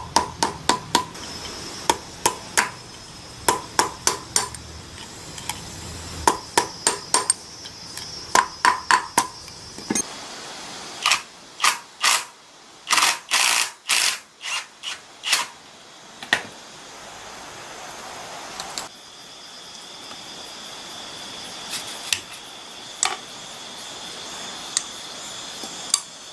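Metal strikes and tool clinks on diesel engine parts: groups of sharp ringing taps for the first ten seconds or so, then several longer noisy bursts around the middle, then a faint steady high whine with only an occasional tap.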